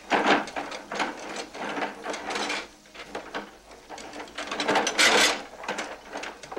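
Galvanised mop bucket's wringer being worked with a mop, its metal lever and press rattling and creaking in a string of uneven strokes. The loudest stroke comes about five seconds in.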